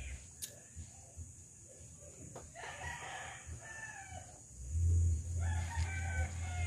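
Rooster crowing twice: one crow about two and a half seconds in, and a second, louder crow near the end, with a low rumble under it.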